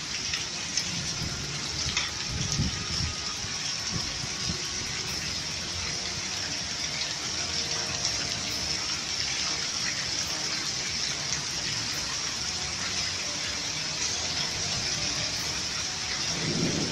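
Hailstorm: hail and heavy rain pelting the ground in a dense, steady hiss, with a couple of low rumbles about two seconds in and near the end.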